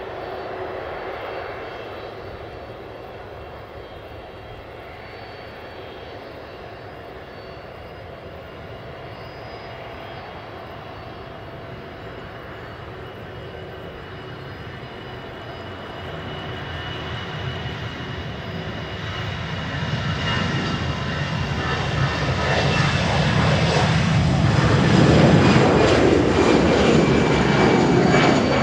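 Boeing 767-300 freighter's twin turbofan engines at low taxi power, a steady jet hum with a thin high whine. It grows louder through the second half and is loudest near the end as the aircraft passes close by.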